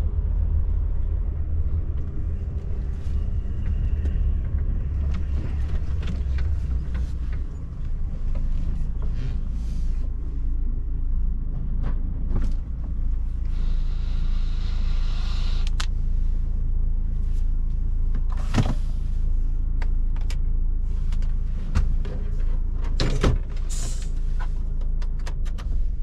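DAF truck's diesel engine running at low speed, heard from inside the cab as a steady low rumble that eases off about a third of the way in. About halfway through there is a hiss of about two seconds, and later come several sharp clicks and knocks.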